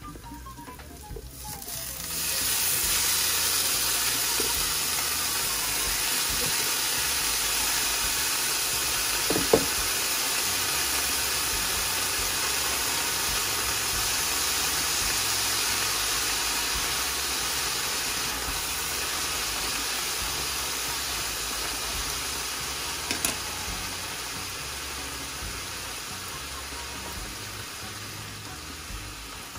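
Fresh spinach sizzling in a hot stainless-steel skillet as it is stir-fried: a loud sizzle sets in about two seconds in as the wet leaves hit the pan, then slowly dies down toward the end. Two sharp knocks of wooden chopsticks against the pan stand out, one about a third of the way in and one near the end.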